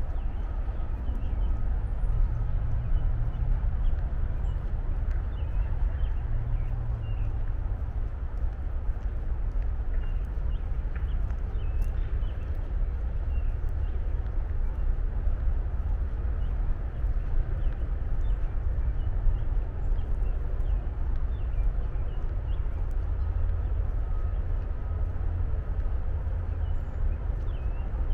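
Steady low rumble of distant highway and city traffic, with faint, scattered bird chirps over it.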